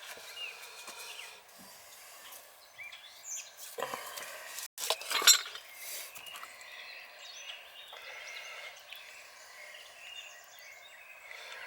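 A few light metallic clinks and taps of small plumbing parts being handled, loudest about five seconds in, with birds chirping faintly.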